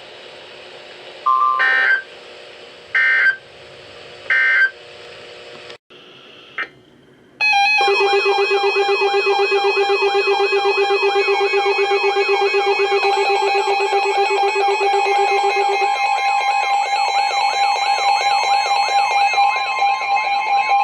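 Emergency Alert System tone sequence: a brief beep, then three short bursts of the SAME digital header tones about a second and a half apart. After a short gap, about seven seconds in, a loud attention tone starts: steady tones with warbling tones layered over them, pulsing rapidly.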